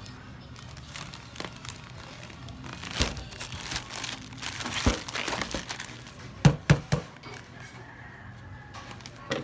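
Plastic courier pouch crinkling as it is handled and turned over, with three sharp knocks about two-thirds of the way through.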